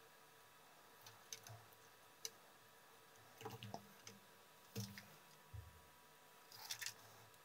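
Near silence with scattered faint clicks and light ticks, about a dozen, a small cluster of them near the end: hand soldering on a small circuit board, the iron tip and solder wire touching the barrel power jack's pins as they are resoldered.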